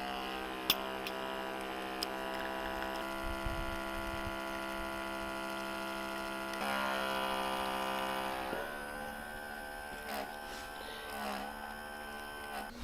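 OutIn Nano portable espresso machine's electric pump humming steadily while it brews espresso. The hum gets louder and changes pitch about two-thirds of the way through, then drops to a quieter, higher tone. A single sharp click comes about a second in.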